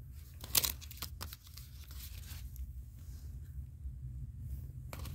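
Foil-wrapped cardboard box of cream cheese crinkling and rustling as it is handled in the hand, in a few short strokes about half a second in, around a second in, and again near the end.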